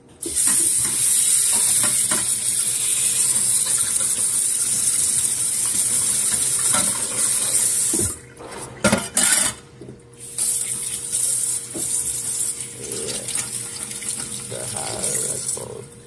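Water running from a faucet into a stainless steel sink. The flow stops for about two seconds around eight seconds in, with a few knocks and clatters, then runs again.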